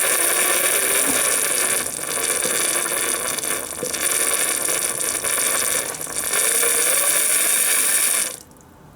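Gas hissing out of a venting heater in a loud, steady rush, easing off briefly about 2, 4 and 6 seconds in, with a faint rising whistle under it, then cutting off suddenly about 8 seconds in. It sounds like bleeding a hydraulic system.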